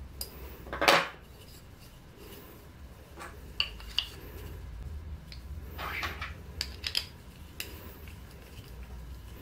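Small metal hardware clinking and wooden parts knocking on a workbench top as a small wooden jig is handled: a sharp clatter about a second in, then scattered light clicks and taps.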